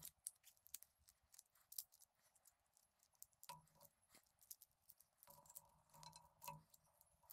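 Faint, scattered clicks and light clinks of metal gearbox parts, shaft, gears and bearing, handled and fitted together into the casing.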